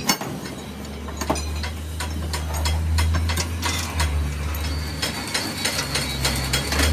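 Steel lifting chains clinking and rattling in irregular sharp clicks as they are wrapped and hooked around a truck's rear axle housing for hoisting, over a steady low hum.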